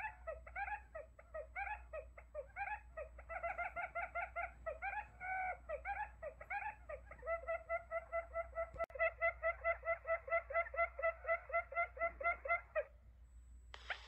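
Recorded quail calls used as a hunting decoy lure: quick runs of short chirps that settle into an even, rapid series, stop briefly near the end, then start again louder and busier.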